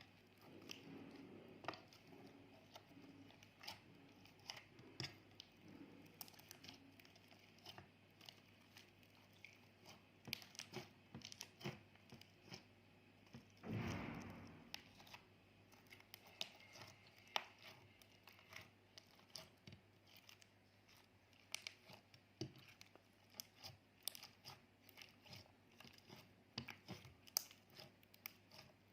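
Clear slime being handled, giving off faint, irregular sticky clicks and crackles, with one longer, louder squelch about 14 seconds in.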